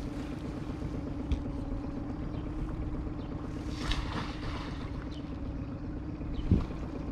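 Wind buffeting the microphone over a steady low hum, with leaves rustling briefly about four seconds in and a single knock near the end.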